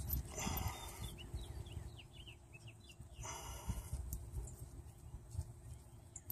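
Two short hisses about three seconds apart, with a quick run of small birds' high chirps between them, over a low rumble of handling noise.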